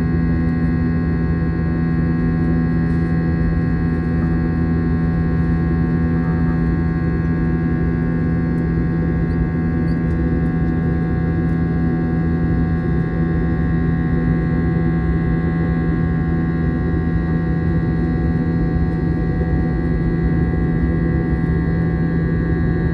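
Steady cabin drone of an Airbus A321 in flight: the rumble of its IAE V2500 engines and airflow, with a constant hum made of several steady tones.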